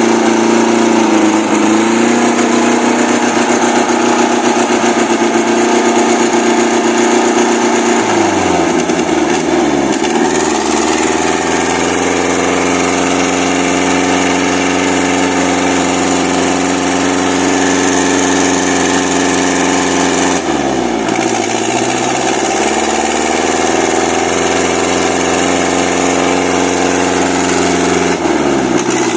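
Old truck engine running loud at steady revs, its pitch dropping and climbing back three times: at about a third of the way in, about two-thirds in, and again near the end.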